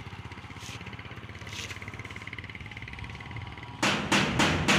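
Steady low rumble of an engine idling. Near the end it is cut into by a fast run of loud, sharp bangs, about four a second, like hammering on metal.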